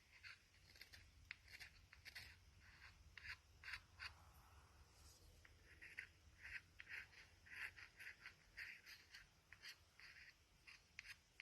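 Faint, short scraping strokes in an irregular run: soot being scraped off the top of a tobacco pipe's bowl.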